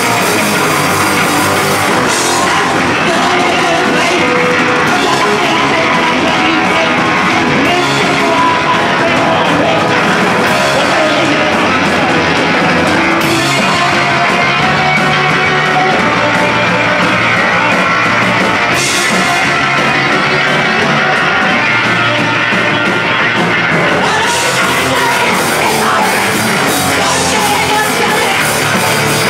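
Live rock band playing loud and without a break: electric guitar, bass guitar and drum kit.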